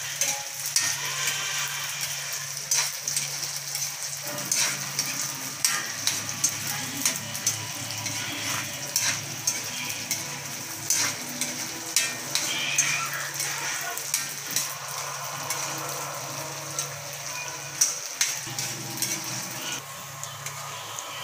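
Cubed tofu deep-frying in hot oil in a wok: a steady sizzle with frequent crackles and pops.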